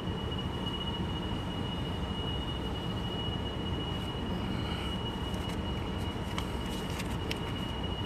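Steady low rumble of a car running, heard from inside the cabin, with a faint steady high whine and a few light clicks in the second half.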